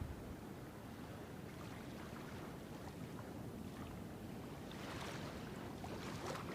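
Sea water washing and lapping in small waves: a steady wash that swells louder about five seconds in and again near the end.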